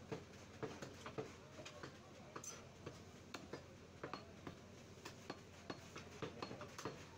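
Meat cleaver chopping beef on a wooden chopping block: a run of sharp knocks, about two a second.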